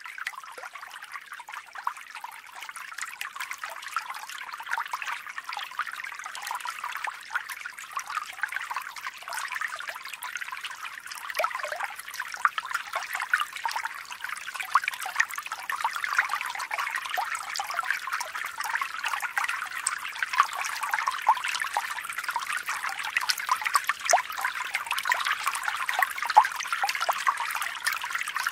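Water trickling and bubbling steadily, with a constant patter of small crackling pops, growing slightly louder over time.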